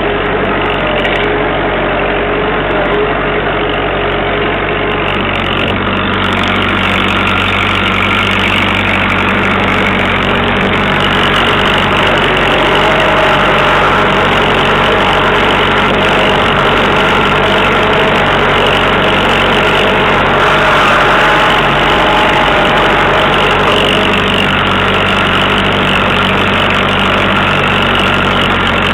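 1959 Massey Ferguson 65 tractor's engine running steadily while pulling a plough, growing a little louder after the first several seconds.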